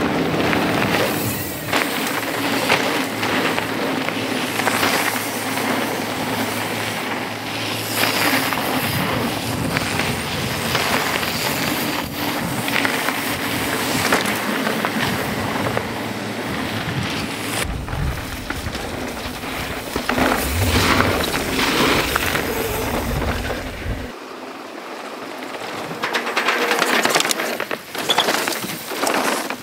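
Mountain bike descending a dirt flow trail, heard from a GoPro mounted on the bike or rider: a continuous rush of tyre noise and wind on the microphone, with the bike rattling and clattering over the bumps.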